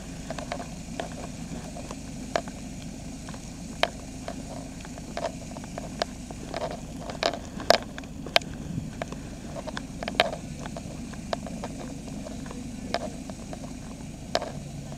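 Heavy truck's diesel engine running slowly at walking pace, a steady low hum, with scattered sharp clicks and taps close by.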